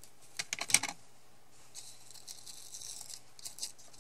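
Roll of red-liner double-sided tape being handled, with a few sharp clicks, then a strip pulled off the roll with a high, papery hiss lasting about a second and a half, followed by a couple more clicks.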